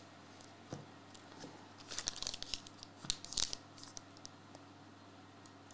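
Faint crinkling and tearing of a foil trading-card pack's wrapper being handled and torn open, in scattered short crackles.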